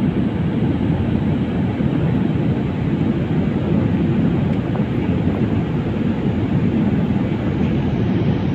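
Steady low rumble of engine and airflow noise inside a jet airliner's cabin in cruise flight, even and unchanging, with no distinct tones or knocks.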